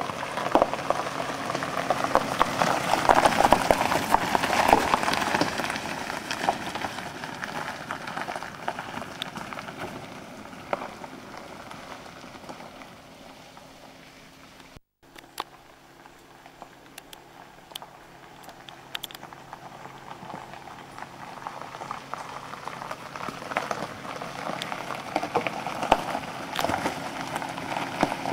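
Tyres of a Nissan X-Trail SUV crunching over loose gravel as it drives past, loudest in the first few seconds and then fading away. After a sudden cut, scattered stone pops are heard, and the crunching builds again near the end as the SUV approaches.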